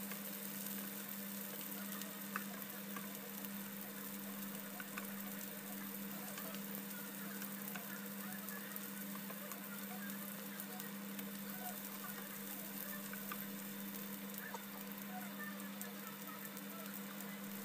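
Green chilies and fried tofu puffs sizzling in oil in a non-stick frying pan while being stir-fried, with occasional light scrapes and taps of a wooden spatula, over a steady low hum.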